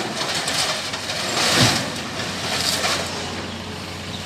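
Excavator engine running steadily while scrap iron clatters and scrapes against the steel bin under the lifting magnet, loudest about a second and a half in.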